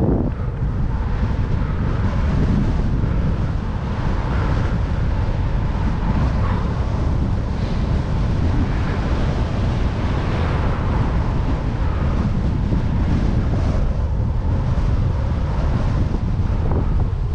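Strong wind buffeting the microphone of a cyclist's camera: a steady low rumble.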